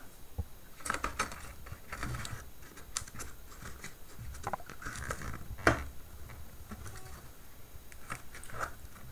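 Handling noise from fingers turning a plastic rope tightener wrapped with kite rope: scattered small clicks and rubbing, with one sharper click a little past halfway.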